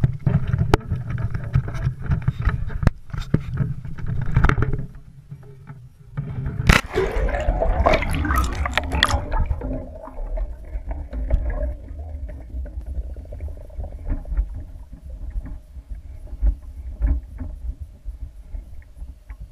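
Low rumbling and knocks, then a loud splash into a swimming pool about seven seconds in, followed by a steady muffled, low underwater rumble with gurgling.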